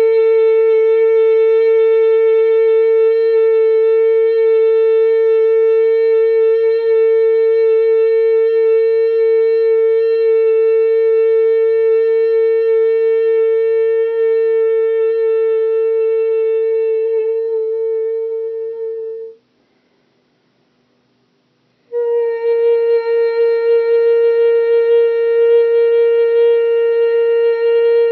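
Light singing: a voice holding one long note at a steady pitch. It breaks off about nineteen seconds in, and after two or three seconds of silence the same note starts again.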